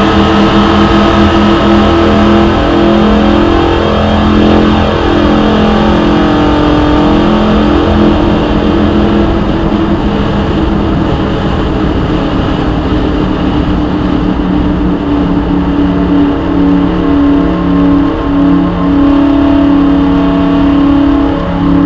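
Stock car's V8 engine running hard at speed on a banked oval, heard from inside the cockpit, loud and steady.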